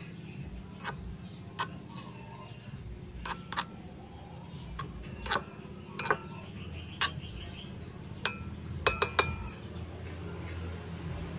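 Metal spatula clinking against a small metal wok while stir-frying noodles and vegetables, about a dozen sharp separate clinks, with a quick run of three near the end.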